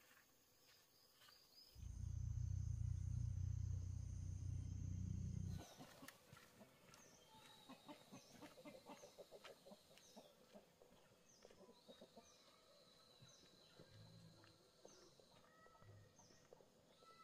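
A low rumble for about four seconds, then birds chirping in short, repeated high calls about once a second, with scattered small clicks.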